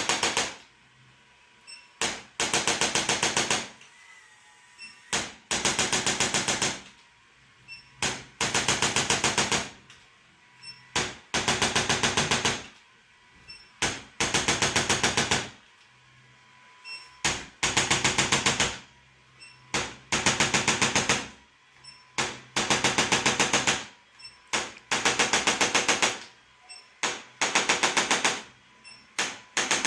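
Rapid mechanical tapping in bursts of about a second, repeating every two to three seconds, often with a single click or two just before each burst: a handheld percussion device pressed on and lifted off again and again during chiropractic treatment.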